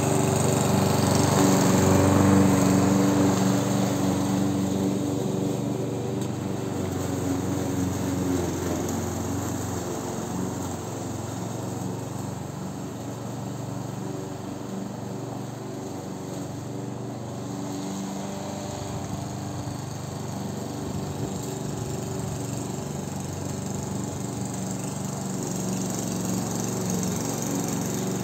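Amber line-B class 4in1 petrol lawn mower running steadily while cutting grass, fading as it moves away over the first half and growing louder again near the end as it comes back.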